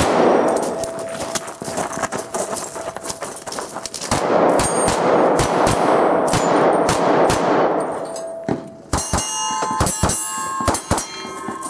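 Repeated revolver shots, the steel plate targets clanging and ringing when hit, the ringing clearest in the last few seconds. Stretches of loud rushing noise come and go over the shots in the first part.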